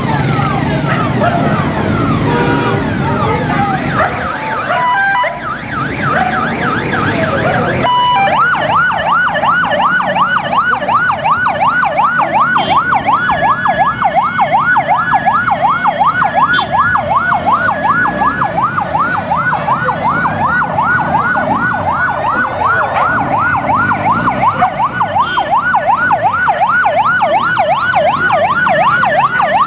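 Electronic sirens on an escort procession. For about the first eight seconds several wails overlap; then a single fast yelping siren takes over, sweeping up and down about three times a second, with engine noise underneath.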